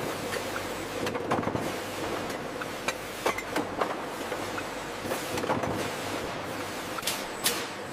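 Bottle-handling machine on a bottling line running: a steady mechanical hiss and hum with irregular sharp clicks and clacks of its moving parts, the sharpest near the end.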